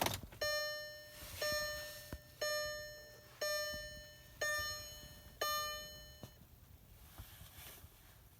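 Car dashboard warning chime sounding six times, about once a second, each tone starting sharply and fading away.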